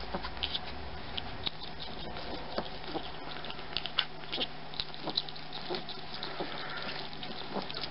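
A small pet's snuffly breathing as it clears its congested nose and airways: faint, irregular little clicks and snuffles, with a steady low hum under them.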